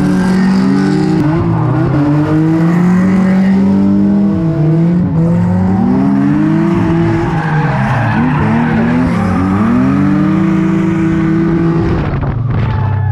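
Drift car engines revving hard, the pitch climbing and dropping again and again as the cars slide sideways through corners in tandem, with tyres squealing on the tarmac. Near the end the revs fall away to a steadier, lower engine note.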